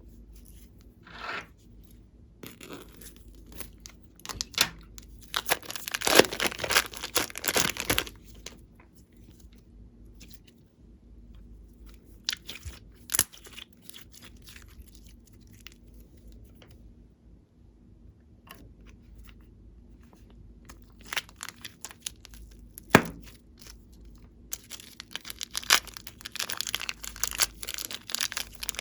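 Glossy slime being stretched, folded and pressed by hand, giving bursts of sticky crackling and popping clicks, with quiet pauses between the bursts.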